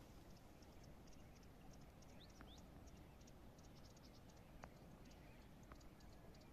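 Faint small birds chirping: short high chirps several times a second, with a couple of quick rising whistle notes about two seconds in and a few soft clicks.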